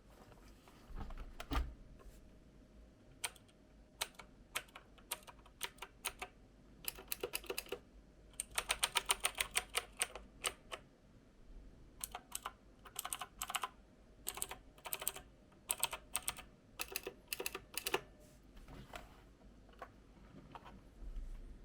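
Typing on a mechanical keyboard with blue switches: sharp clicky keystrokes, a few at a time, then a fast run of about two seconds near the middle, then more scattered groups.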